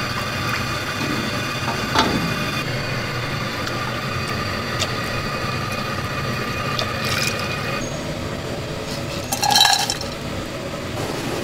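Dishes and metal utensils clinking in a food-stall kitchen, a few light clicks and one louder clink near the end, over a steady high whine that stops about two-thirds of the way through.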